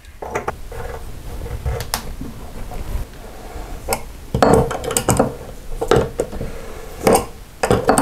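An adjustable wrench's jaws clicking and scraping on a faucet's metal locking collar nut as the nut is fitted over the new cartridge and tightened. The clicks come irregularly, bunched about halfway through and again near the end.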